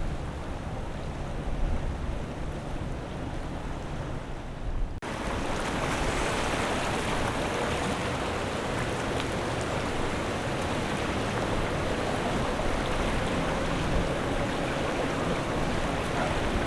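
Rushing water of breaking waves, with low wind rumble on the microphone. About five seconds in, an abrupt cut switches to a louder, steady rush of water.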